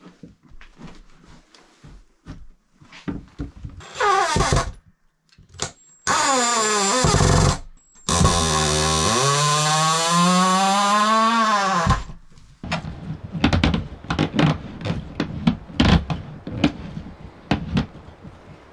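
Cordless drill driving screws into a wooden wall, in three runs of the motor: a short one about four seconds in, another of about a second and a half, then a longer run of about four seconds whose pitch rises and then drops as it stops. After it comes a string of light knocks and taps.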